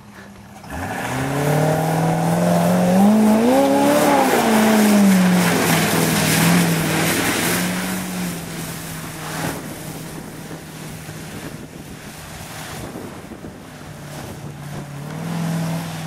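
A truck engine revs up hard about a second in while mudding, climbing in pitch and falling back over a few seconds, then holding a steady high speed. Under it is the hiss and splash of spinning tyres throwing mud and water. Near the end the engine revs up again.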